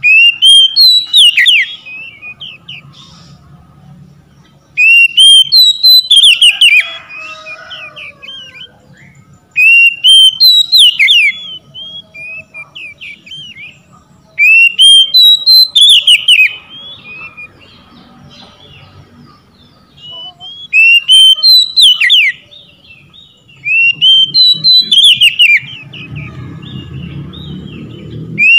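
Male oriental magpie-robin singing: six loud bursts of rapid, sweeping whistled phrases, each about two seconds long and coming every four to five seconds, with quieter chirps in between.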